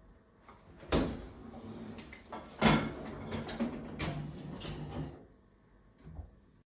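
Knocks and clatter of kitchen things being handled, with the sound of a cupboard or drawer: a sharp knock about a second in, the loudest knock a little before the middle, another soon after with clatter trailing on, and a light knock near the end.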